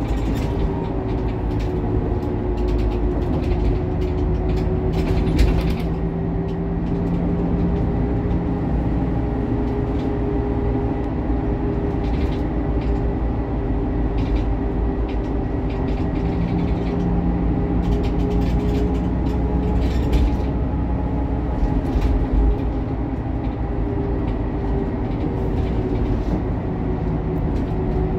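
Cabin noise inside a Kravtex-Kühne Credo Econell 12 city bus on the move: a steady engine and drivetrain drone with a whine that drifts slightly in pitch. Now and then there is a short rattle or knock from the body.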